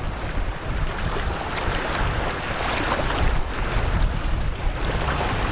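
Wind buffeting the microphone in a low rumble, over choppy lake water washing around a canoe being paddled through chop and whitecaps.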